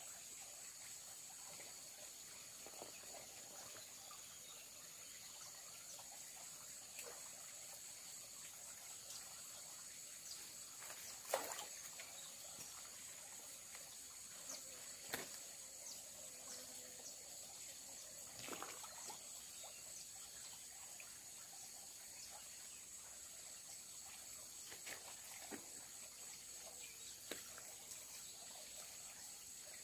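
A shallow forest stream trickling faintly while rocks are lifted and shifted in it by hand, with a few scattered knocks and splashes, the sharpest about 11 and 15 seconds in. A steady high-pitched drone sits behind it.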